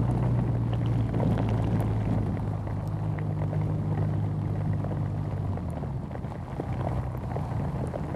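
BMW R nineT's air/oil-cooled boxer twin running steadily at road speed under a rush of wind and rain. The engine note fades about five and a half seconds in.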